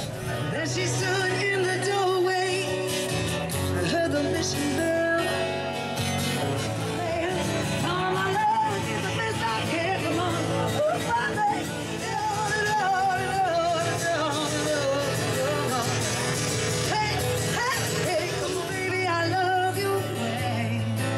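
Live band playing a song: singing over strummed acoustic guitars, with a steady low bass line.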